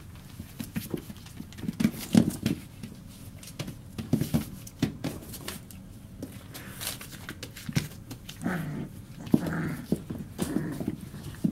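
Border collie puppies, almost four weeks old, playing and wrestling. Paws scuffle and rustle on newspaper, and in the second half the puppies make short vocal sounds.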